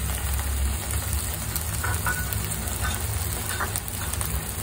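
Shrimp frying steadily in a hot pan, with ketchup and chili sauces just added on top.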